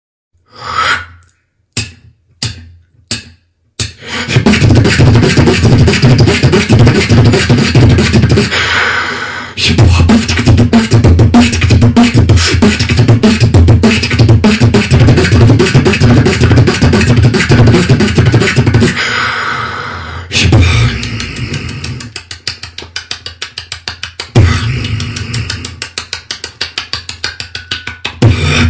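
Human beatboxing: a few separate vocal drum hits, then from about four seconds in a fast, continuous pattern of mouth-made kicks, snares and hi-hats with a heavy low bass line. A short hummed tone cuts in twice along the way, and near the end the pattern thins to quicker, lighter clicks.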